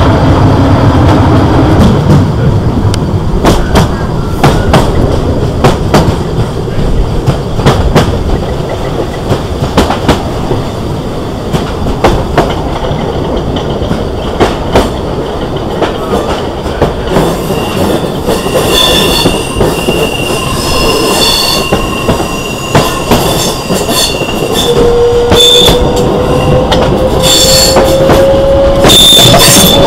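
Class 465 Networker electric multiple unit running, its wheels clicking sharply over rail joints above a steady rumble. A motor tone drops in the first couple of seconds, high steady whines come in around the middle, and a traction motor whine rises in pitch over the last few seconds as the unit picks up speed.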